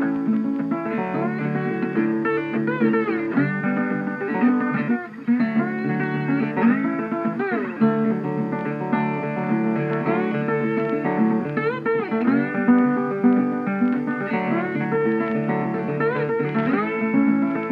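Background music: plucked guitar with bending, sliding notes in a bluesy style.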